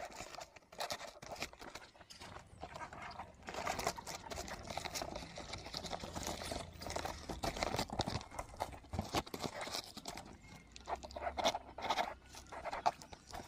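Knife cutting through packing tape and plastic wrap on a cardboard box, with the cardboard and plastic crackling, scraping and tearing in irregular bursts as the box is pulled open.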